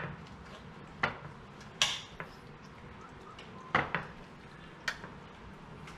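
Metal spoon clinking and scraping against a glass baking dish while ceviche is stirred: several sharp, irregular clinks, about a second apart.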